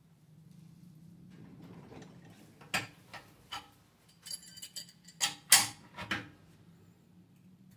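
Total 10-inch steel adjustable wrench clinking against a brass pipe fitting and the vise as it is taken off and set back on: three separate sharp metallic clicks, then a quick run of clinks with the loudest about five and a half seconds in.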